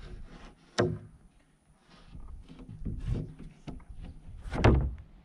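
Large plywood sheet being slid and shifted over a wooden roof deck, with scraping and knocking, and a heavy thud about four and a half seconds in as it is laid down flat.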